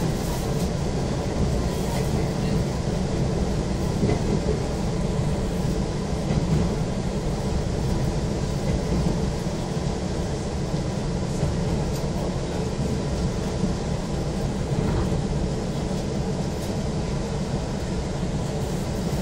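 Izu Kyuko 2100 series electric train heard from inside the car: a steady low rumble of running noise as it rolls slowly into its terminus platform.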